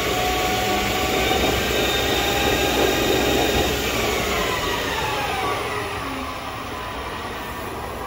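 Harrison Alpha 400 lathe's spindle drive running the chuck at speed, a steady mechanical whine. About halfway through, the whine falls in pitch and gets quieter as the spindle speed is turned down.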